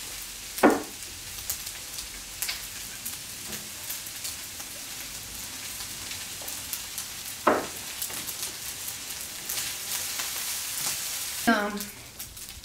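Fried rice sizzling on a hot electric griddle and in a wok, a steady frying hiss, broken by a few sharp knocks, the loudest about a second in and about seven and a half seconds in.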